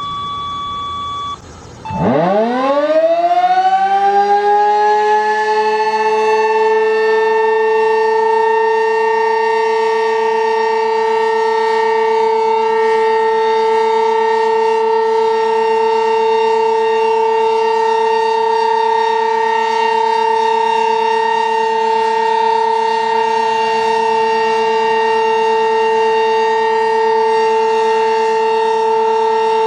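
Sentry 15V2T-B outdoor warning siren winding up about two seconds in, its pitch climbing steeply and then levelling off into a steady loud wail: the weekly test sounding.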